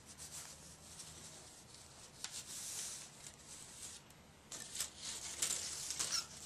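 Faint rustling and light clicks of plastic model-kit parts sprues being picked up and slid across a table, in two short spells, the second near the end busier.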